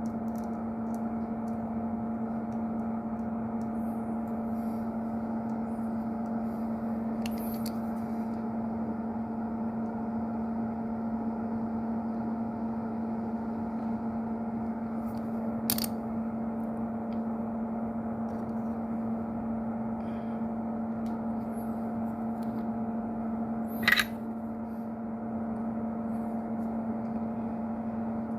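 Steady electrical hum with a fixed low tone, like a small fan or motor running. A few light clicks and taps, with a sharper tap about 16 s in and the loudest click about 24 s in.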